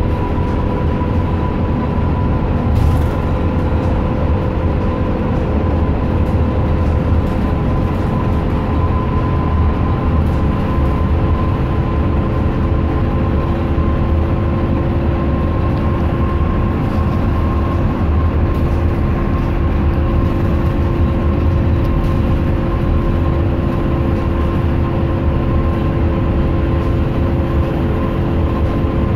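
Inside a city bus driving at steady speed: a continuous low drone of engine and road noise, with a steady whine of several tones running through it.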